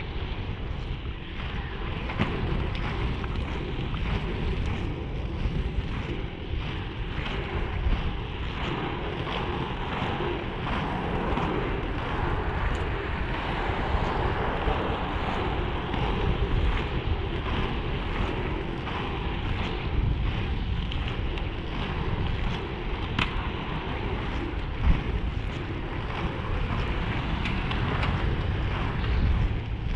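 FR325 inline skate wheels rolling over asphalt, with wind noise on the microphone and a sharp click about 25 seconds in.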